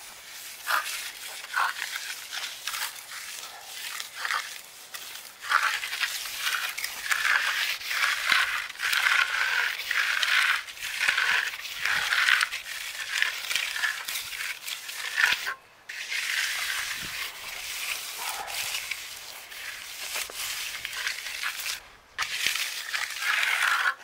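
Hand trowel scraping across wet concrete in repeated strokes as a fresh slab is finished by hand, with two short pauses in the second half.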